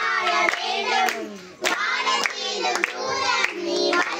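A group of children singing together and clapping their hands along, with a short break in the voices about a second and a half in.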